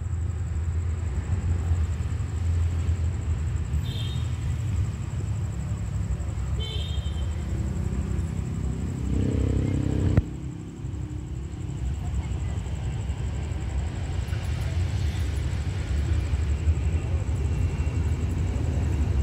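Low, steady rumble of an approaching diesel commuter train, growing a little louder toward the end as it nears the platform.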